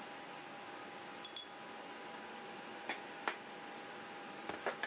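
Chrome vanadium steel socket extension bars and impact sockets clinking and knocking together as they are handled: a ringing metallic double clink about a second in, two sharper clicks in the middle and a quick cluster near the end, over a steady low hiss.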